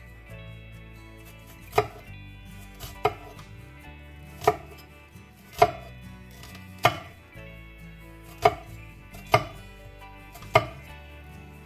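Chef's knife cutting through a red onion and knocking on an end-grain wooden cutting board: eight separate sharp knocks, roughly a second apart, over faint background music.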